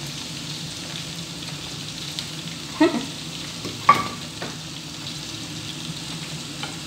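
A spatula scrapes fried sambal out of a non-stick frying pan onto a plate, with two sharp clanks of the pan and spatula about three and four seconds in, the second one ringing briefly. Under it runs a steady sizzle of hot oil.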